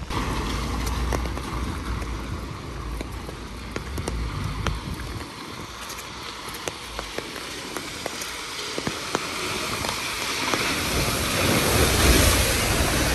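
Rain on a city street with traffic hissing by on the wet road; one vehicle swells in and passes near the end. Scattered sharp ticks sound close by throughout.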